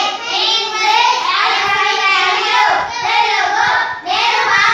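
A group of children reciting aloud together in a sing-song chant, in phrases a second or so long with brief breaks between them.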